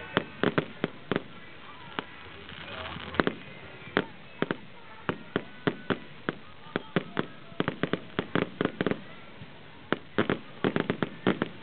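Aerial fireworks shells bursting in an irregular series of sharp bangs and crackles, a few a second, coming in quick clusters in the second half.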